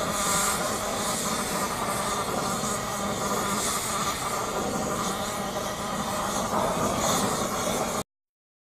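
Gas torch flame hissing steadily as it heats a two-stroke motorcycle exhaust pipe to burn out carbon deposits. It cuts off suddenly about eight seconds in.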